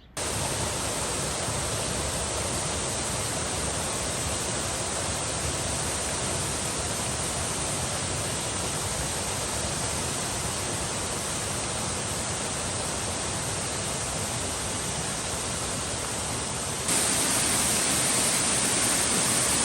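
Steady rush of falling water from a waterfall, an even hiss with no breaks, which gets louder and brighter near the end.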